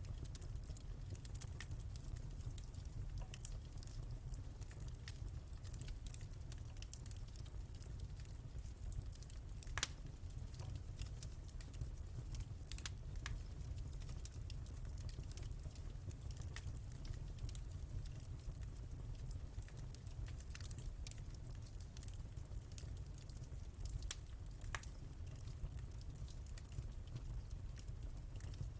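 Fireplace fire crackling, with scattered sharp pops over a steady low rumble; the loudest pop comes about ten seconds in.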